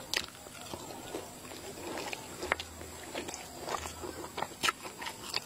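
A person chewing a mouthful of egg in a wet, spicy dressing: irregular soft wet mouth clicks and smacks.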